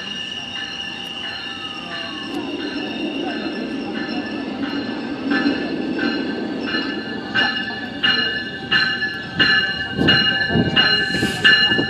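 GO Transit bilevel commuter train pulling into the station, cab car leading: a steady high-pitched wheel squeal over a low rumble, with a regular clickety-clack of wheels over rail joints that grows louder and quicker as the train comes alongside.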